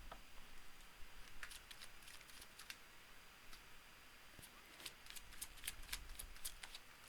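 Faint, scattered clicks and flicks of tarot cards being handled and shuffled, in two bunches: one about a second in and another from about four and a half seconds in.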